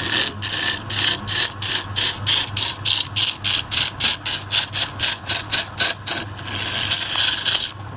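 Hand tool scraping against a spinning wooden cylinder on a lathe in short rapid strokes, about three a second, cutting a row of shallow rings into it; near the end it turns into one longer steady scrape. The lathe's steady hum runs underneath.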